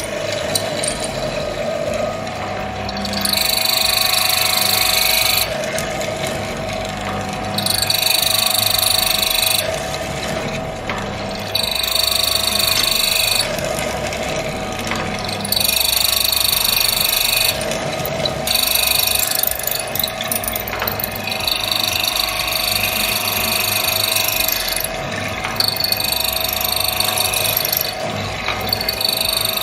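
Hollow-chisel mortiser's 1 horsepower motor running steadily while the chisel and its auger bit are plunged into wood again and again. Each cut is a loud rasping that lasts about two seconds, about eight cuts in a row, one every three to four seconds.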